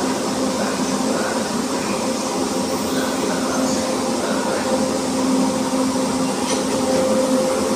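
Frecciarossa high-speed electric train standing at the platform ready to depart, its power car's equipment and blowers giving a steady hum with a constant whine.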